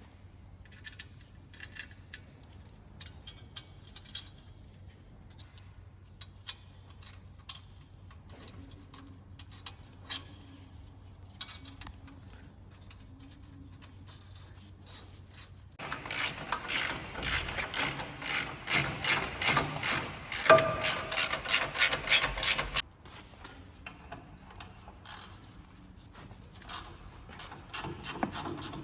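Hand-tool work on the car's metal: scattered light clicks and taps, then a loud run of rapid, repeated strokes lasting about seven seconds past the middle.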